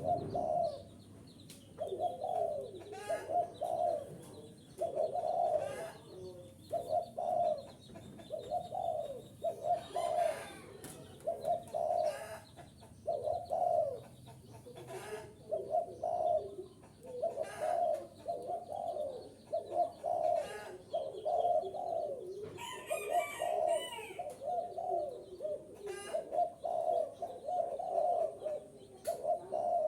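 Spotted dove cooing over and over, one low coo phrase after another about every second or so: the calling used to provoke and draw in wild doves. A short burst of higher chirping comes in about two-thirds of the way through.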